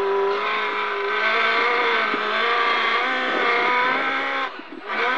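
Toyota Hilux rally car's engine, heard inside the cockpit, revving hard under load over rough desert ground, its pitch rising and falling. It cuts out briefly about four and a half seconds in, then comes back loud.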